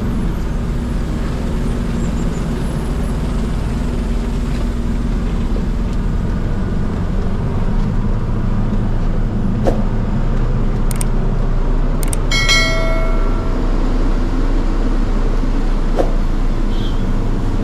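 Lorry's diesel engine running steadily, heard from inside the cab, with a few sharp clicks and knocks. About two-thirds of the way through, a horn sounds once for about a second.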